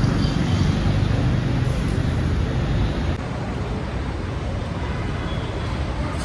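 Steady rumble of road traffic, dropping slightly in level about three seconds in.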